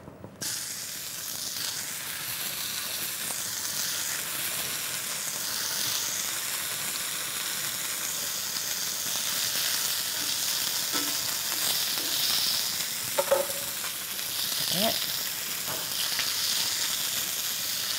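Beef eye fillet medallions sizzling as they sear in a very hot pan of olive oil; the sizzle starts suddenly as the meat goes in and stays steady. A few brief clicks sound about two-thirds of the way through.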